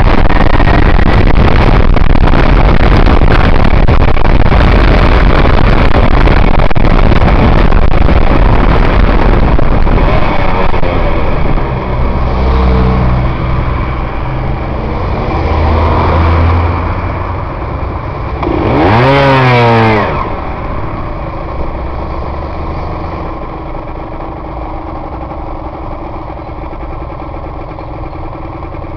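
Aprilia RS125 two-stroke single-cylinder motorcycle heard from the rider's helmet. For about the first third it runs at speed under heavy wind noise, then the engine note falls away as it slows. About two-thirds in, the engine revs sharply up and back down once, then settles to quieter, steady running.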